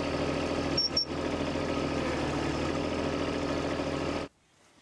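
Small diesel engine of a 1.7-ton mini excavator idling steadily, with two short high chirps about a second in. The engine sound stops abruptly near the end.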